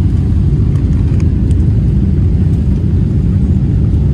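Jet airliner cabin noise heard from a window seat at low altitude: a loud, steady low rumble of the engines and the air rushing past the fuselage.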